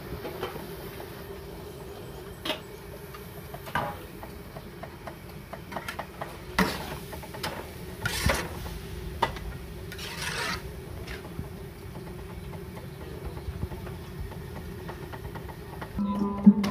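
Metal spatula scraping and stirring vegetables in a large wok, with several rasping scrapes in the middle over a steady low hum. Music comes in near the end.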